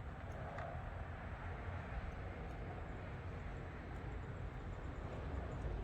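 Heat gun running steadily, blowing hot air onto a solder-seal sleeve to melt it over a spliced O2 sensor wire.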